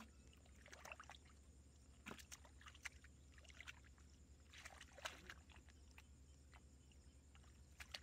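Faint, irregular splashing and sloshing of hands groping through a shallow muddy pool, feeling in the mud for fish.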